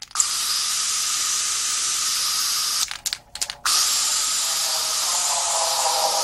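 Steady hiss, broken by a few brief dropouts about three seconds in.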